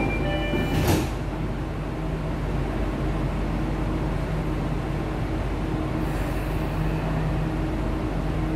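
The last notes of the door-warning chime, then the sliding doors of an MRT train car shut with a thud about a second in. After that a steady low hum fills the car.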